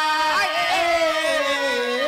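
A male birha folk singer holds a long sung note, then ornaments it with quick wavering turns and lets the pitch step down in stages.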